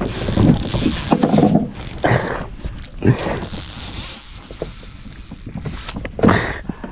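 Insects buzzing in a steady high drone, in two stretches with a break of about two seconds between them, over irregular low knocks and rustling.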